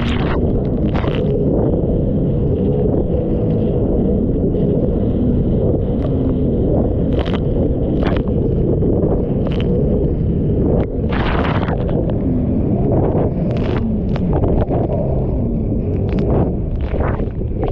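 Personal watercraft running through choppy storm waves: a steady low rumble of engine and wind buffeting the microphone, broken every second or two by sharp splashes as the bow slaps into waves and spray hits the hull.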